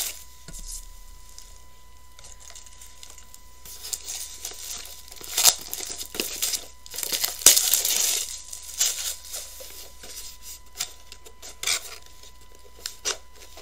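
Plastic packaging crinkling and tearing in irregular bursts as a small boxed item is unwrapped by hand.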